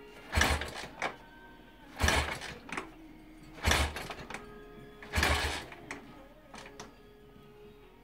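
Victoria V35 Bergmeister's 350 cc V-twin being kick-started: four kicks about a second and a half apart, each a short rush of the engine turning over that dies away without firing. The ignition has no current, a connection left unplugged.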